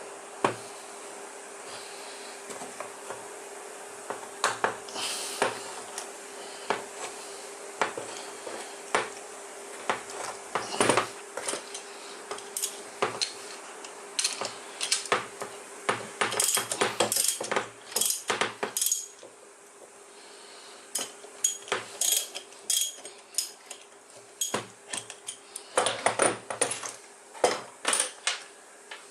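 Metal tools and small metal parts clinking, tapping and knocking against each other and a hard work surface in irregular bursts, busiest in the second half, over a steady hum that stops about two-thirds of the way through.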